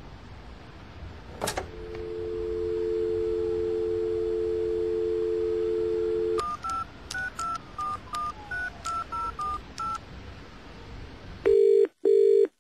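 A telephone line picked up with a click, then a steady dial tone for about five seconds, then a quick run of about a dozen keypad tone beeps as a number is dialled. Near the end come two short, loud bursts of ringing tone as the call goes through.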